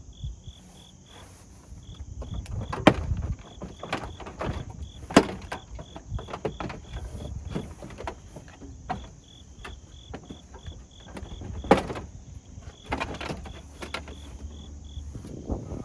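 Plastic front bumper cover of a 2023 Acura Integra being worked off the car: sharp snaps of clips letting go, the loudest about three, five and twelve seconds in, among knocks and rubbing of the plastic.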